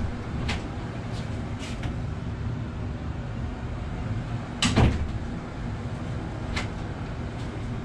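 Restroom door on spring hinges swinging shut on its own and latching with one loud bang about five seconds in, its storeroom-function lock catching. Light latch clicks come first as the knob is turned and the door pulled open, and another light click follows, over a steady low hum.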